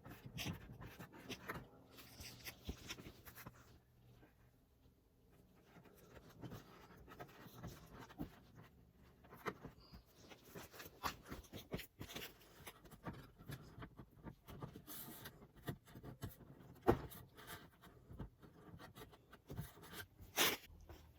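Scattered sharp plastic clicks, taps and rubbing as a plastic rear diffuser is worked onto the bumper and its push-pin fasteners are pressed in, with a short quiet lull a few seconds in.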